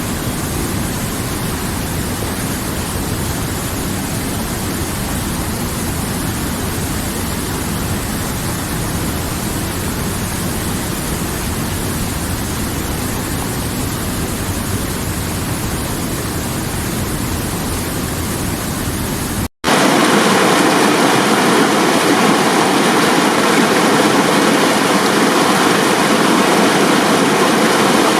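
Steady rushing water with no change in its sound, broken by a sudden brief dropout about two-thirds of the way in; after it a louder stretch of rushing water follows, carrying two faint steady tones.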